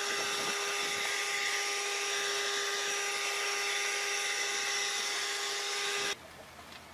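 Small DC motor of a homemade vacuum cleaner running at speed, a steady high whine with a strong rushing hiss, stopping abruptly about six seconds in.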